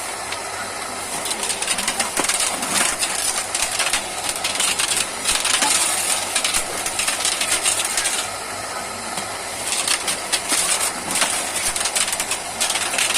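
Machine for cutting silicon steel transformer-core strip running, with a rapid metallic clicking and rattling of thin steel plate. The clatter eases for a second or so about eight seconds in, then picks up again.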